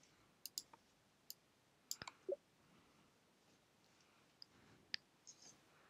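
Near silence broken by about ten faint, scattered clicks at a computer, the loudest around two seconds in.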